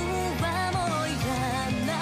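Japanese pop song: a vocalist singing a gliding melody over a full backing band.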